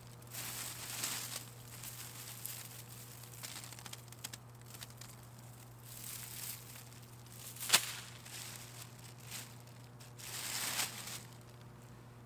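Gloved hands scraping and rummaging through loose dry soil and dead stems to dig out Chinese artichoke tubers, in a few spells of rustling, with one sharp click a little past the middle.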